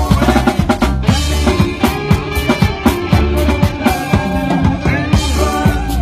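Live brass band playing: trombones and other horns over a steady beat of bass drum and snare.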